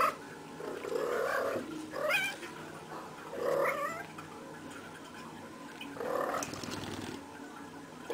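Cat making a series of short vocal calls, about four in all, some with a wavering pitch that rises and falls.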